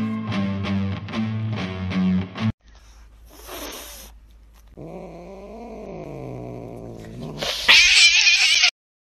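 Music with a strummed guitar for about two and a half seconds, then a cat's long, low yowl that rises and falls in pitch, ending in a loud hiss near the end.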